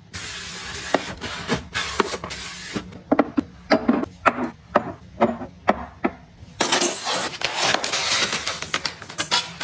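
Close-up handling sounds: frosted shot glasses rubbed and turned in the hands, then a quick run of light taps and knocks as a glass is set on a shelf. About two-thirds in, dense rustling and scraping starts as a taped foam shipping box is pulled open.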